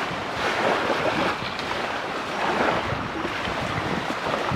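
Wind on the microphone mixed with small waves washing on a sandy shoreline: a steady rushing noise that swells and eases.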